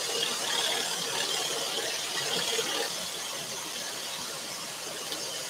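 Auto-start dust extractor running on after the scroll saw has stopped: a steady rushing hiss with a high whine, which eases off slightly about three seconds in.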